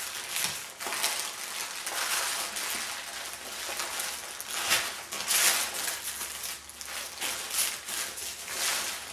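Plastic bags of screws, nuts and bolts and their paper wrapping crinkling and rustling as they are handled and unwrapped. The crinkles come irregularly and are loudest about five seconds in.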